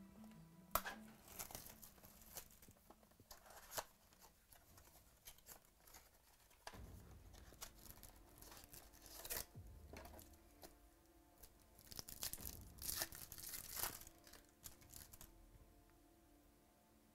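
Trading-card pack wrappers being torn open and crinkled in short faint bursts, with small clicks and taps between; the crinkling is loudest in the last third.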